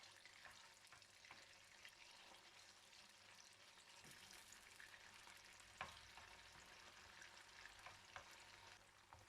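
Chicken pieces frying in oil in a frying pan, a faint steady sizzle with a few sharp clicks scattered through it.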